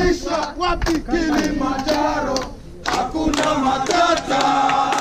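A group of voices chanting and singing together, with shouting.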